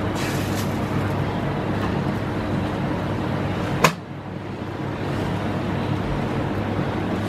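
Steady hiss and hum at a flat griddle where dosa batter is cooking. One sharp click comes about four seconds in, after which the sound briefly drops and then builds back.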